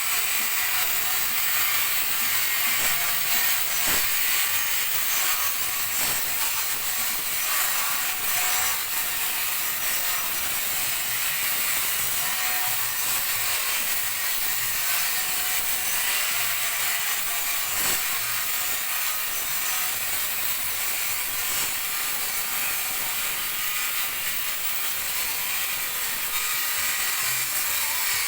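Electric polisher with an abrasive pad sanding a 1B-finish metal strip plate, stripping off its orange-peel surface. A steady hiss of abrasive on metal with a faint motor whine.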